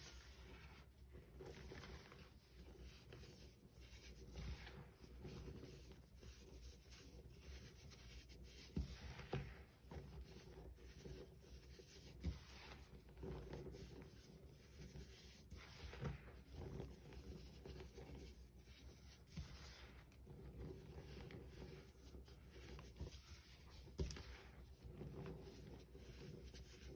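Hands squeezing and crumbling handfuls of baking soda: faint, irregular scrunching and rubbing of packed powder, with a few sharper crunches scattered through.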